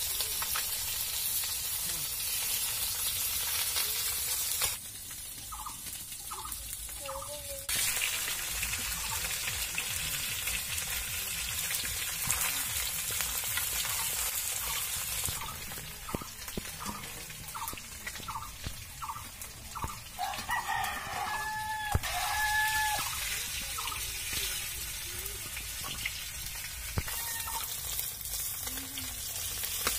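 Shol (snakehead) fish steaks sizzling as they fry in hot oil in an iron wok, with the metal spatula scraping the pan now and then. Chickens cluck in short repeated notes, with a longer two-part call about twenty seconds in.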